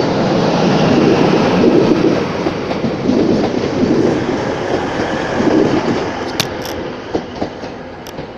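TransPennine Express Class 185 diesel multiple unit running into the station, a loud rumble of wheels and engine that slowly dies away. A few sharp clicks come near the end.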